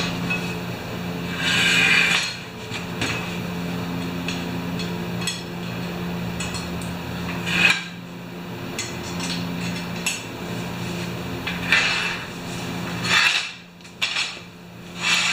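Metal clanking and scraping in several short bouts, typical of sheet metal and tools being handled on a workbench, over a steady low hum.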